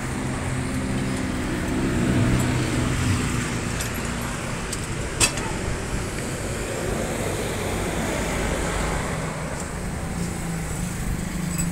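Road traffic with a vehicle engine running close by, a steady low hum over road noise. There is one sharp click about five seconds in.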